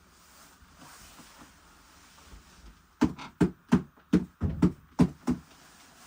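A quick run of about nine sharp knocks or thuds, about three a second, starting halfway in after a quiet spell.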